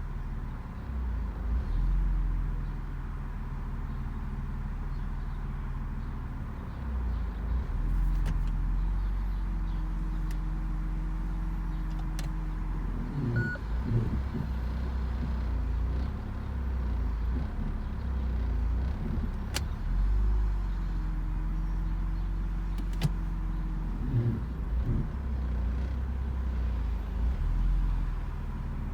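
BMW E46's M54B30 3.0-litre straight-six idling roughly on a cold start. The idle speed wanders, rising and falling unevenly several times, with a few low shudders in between.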